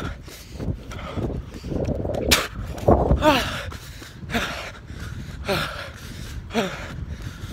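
A runner panting hard and rhythmically while running, with voiced gasps and groans that drop in pitch, roughly once a second from about three seconds in. A sharp click comes a little over two seconds in.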